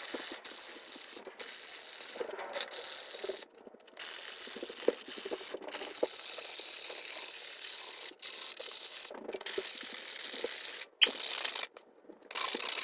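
220-grit sandpaper rubbed by hand over a 3D-printed plastic mask: a steady sanding hiss, broken by a few short pauses between runs of strokes.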